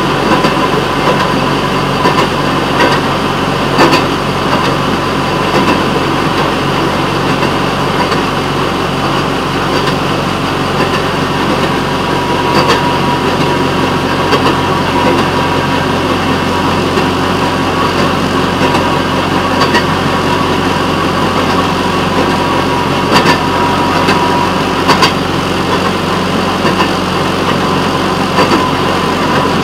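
Railroad motorcar's small engine running steadily as the car rolls along the track, with a few sharp clicks here and there.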